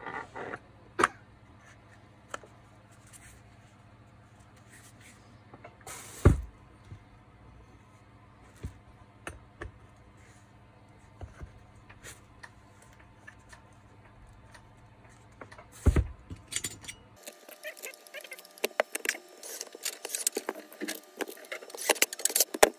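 Parts of a Makita GA9010C angle grinder clicking and knocking as the gear housing is fitted back onto the motor housing, with two sharp knocks about six and sixteen seconds in. Over the last few seconds a Makita cordless drill-driver drives in the housing screws, with a fast run of clicks.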